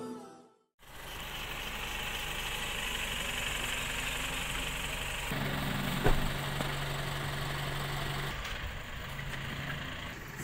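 A vehicle engine idling steadily, with a short sharp click about six seconds in.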